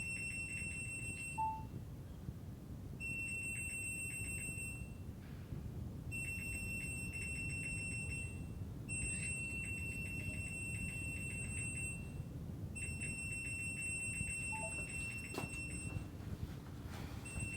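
A front-load washing machine's control panel beeping: bursts of rapid high beeps, each about two to three seconds long with about a second between them, repeating throughout. This is the nonstop beeping fault the machine has, heard over a low steady hum.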